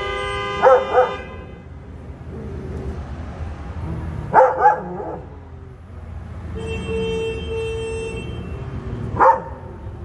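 Dogs barking: sharp barks in quick pairs about a second in and about four and a half seconds in, and a single bark near the end, with long steady whining between them.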